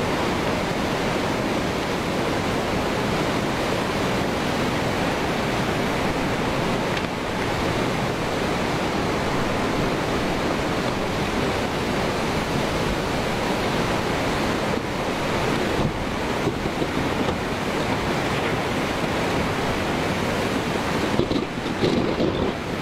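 Tsunami floodwater rushing and churning, a steady rush of water noise.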